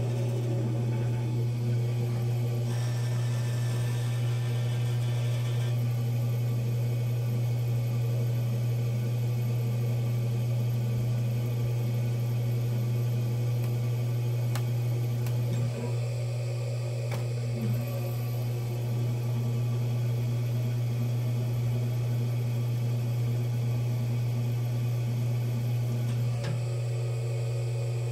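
Electric pottery wheel motor running with a steady low hum as the wheel head spins. A few seconds in there is a brief stretch of light scraping as a rubber rib works the wet clay wall of the cup.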